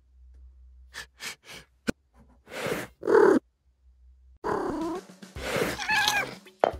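Domestic cat vocalising in several short bursts, the loudest about three seconds in, with softer calls that waver in pitch later on.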